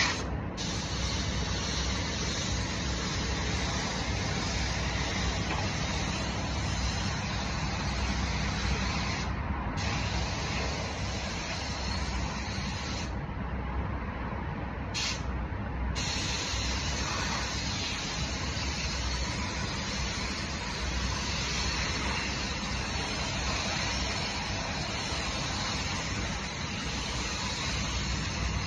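Gravity-feed paint spray gun hissing steadily as compressed air atomises paint, over the low rumble of a paint booth's ventilation fans. The hiss cuts out briefly a few times about halfway through, between spray passes, while the rumble carries on.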